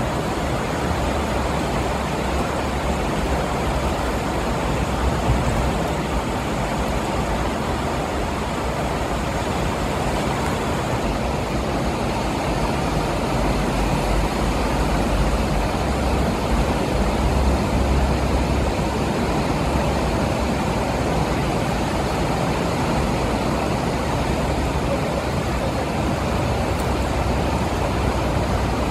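Steady rushing noise of a fast-flowing, flooded river, with a low rumble underneath.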